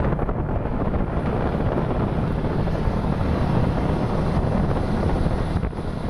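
Wind rumbling steadily on the microphone, a dense low roar with no clear tones.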